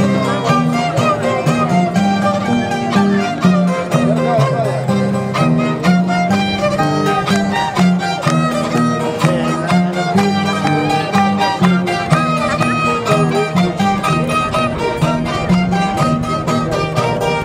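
Live Andean harp music: a steady, rhythmic tune over changing plucked bass notes.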